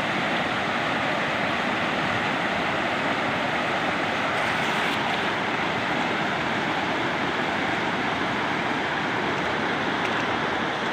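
Steady, even rushing of water at a constant level, with no distinct events.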